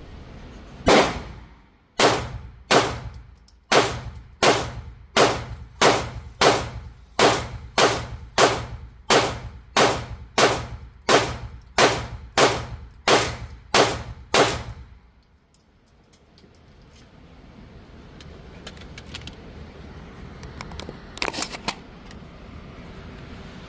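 PSA Dagger 9mm pistol fired in steady slow succession, about nineteen shots roughly one every three-quarters of a second, emptying a magazine. Later come two fainter quick cracks.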